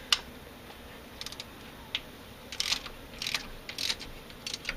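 Ratcheting wrench clicking in several short bursts as it tightens roller rocker arm pedestal bolts on a Jeep 4.0 cylinder head, a little at a time.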